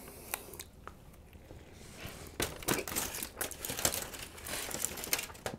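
Aluminium foil crinkling and crackling as a hand picks at it, starting about two seconds in.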